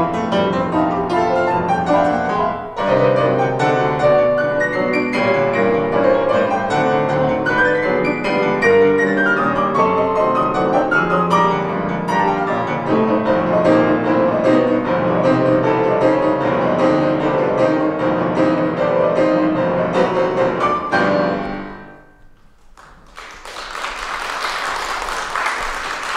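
Grand piano played four-hands: a fast classical piece in dense chords that stops about 21 seconds in. After a short pause, an audience applauds.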